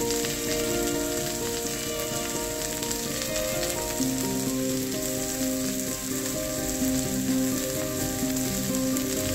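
Sliced onions, garlic and ginger sizzling and crackling steadily in hot oil in a kadai, stirred with a spatula around the middle. Soft background music with held notes plays over it.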